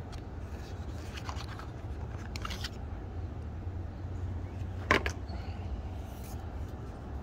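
Handling noise from a USB rechargeable arc lighter and its cardboard box: a few light scrapes and rustles, then one sharp click about five seconds in, over a steady low hum.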